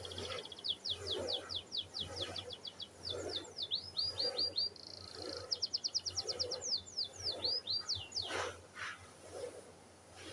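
Domestic canary singing a long song of fast trills and rapid down-sweeping notes, which stops about eight seconds in.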